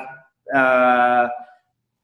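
A man's drawn-out hesitation sound, one held 'uhh' at a steady pitch lasting about a second, between sentences.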